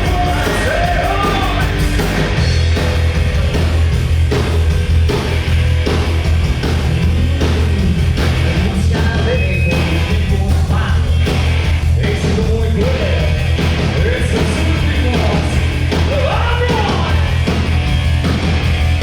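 Loud live band music with a singer's voice over it, a heavy bass line and drums running throughout.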